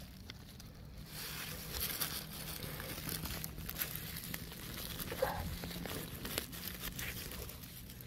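Dry leaf litter and twigs rustling and crackling, as someone moves through forest undergrowth; it picks up about a second in and eases off near the end.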